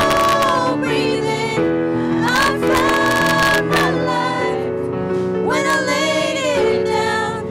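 Singers holding long notes over piano chords, in a slow worship-song style.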